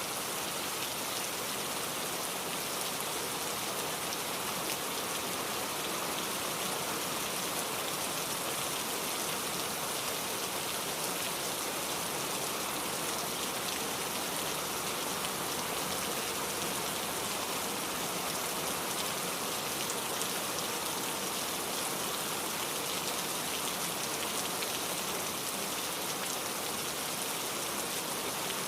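Steady rainfall: an even hiss of rain with fine pattering drops, unchanging throughout.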